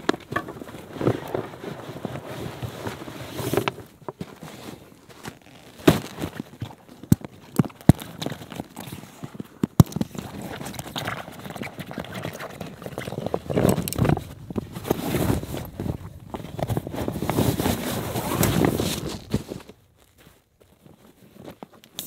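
Close rustling with irregular knocks and sharp clicks, like gear being handled, that goes quiet about two seconds before the end.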